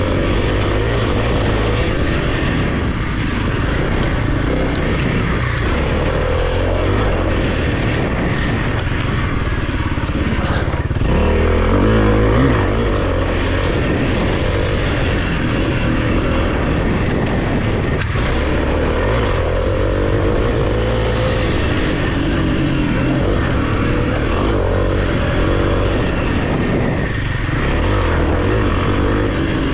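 Kawasaki KLX300 dirt bike's single-cylinder four-stroke engine running under way on a trail, its pitch rising and falling with the throttle. It is briefly louder about eleven to thirteen seconds in.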